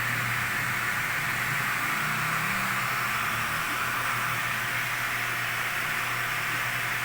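Reverse-osmosis water purification system running: a steady hiss of water flow with a low, even hum from its pump.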